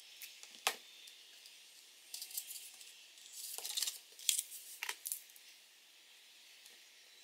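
Quiet desk-handling noises from hands working on a wooden desk: a sharp tap under a second in, then a few short clusters of light clicks and rustles between about two and five seconds in, before it goes still.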